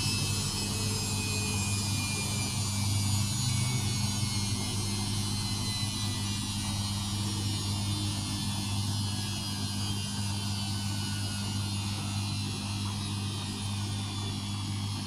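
Samsung washing machine winding down at the end of its spin cycle: a steady motor hum with a faint whine slowly falling in pitch as the drum slows toward a stop.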